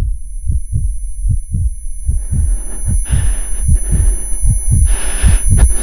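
Rapid pounding heartbeat, about four low thumps a second, with a thin high steady ringing tone over it and swells of hiss.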